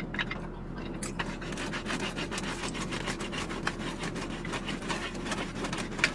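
Pizza cutter being worked back and forth through a pizza, scraping against the cardboard pizza box underneath in a steady run of rough strokes.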